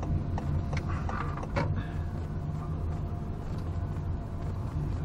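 Steady low rumble of a Honda Freed+ driving slowly, heard from inside the cabin, with a few light clicks in the first two seconds.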